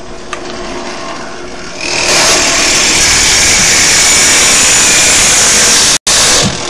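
Drill press running, then from about two seconds in a cheap wood-cutting hole saw cuts into an aluminium soda can: a loud, steady cutting noise with a high tone running through it. The sound drops out for an instant near the end, then returns briefly.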